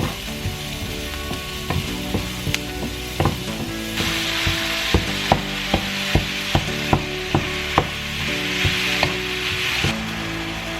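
Taco filling sizzling in a frying pan while it is stirred. The sizzle grows louder about four seconds in, and the spoon knocks against the pan about two or three times a second.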